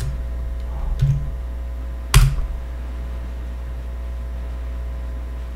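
Computer keyboard keystrokes: a light tap about a second in and a sharp, louder key press a little after two seconds, over a steady low electrical hum.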